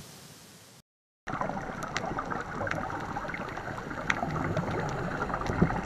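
Underwater ambience picked up by a camera in its waterproof housing: a steady muffled rush of water with many scattered sharp clicks and crackles. It starts after a brief dead silence about a second in.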